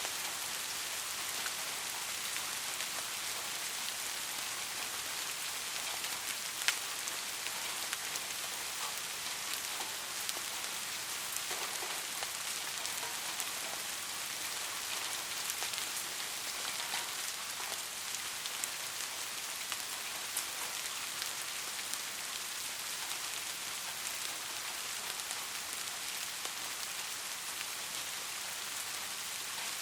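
Steady rain falling, an even hiss with scattered sharper drop ticks, one a little louder about seven seconds in.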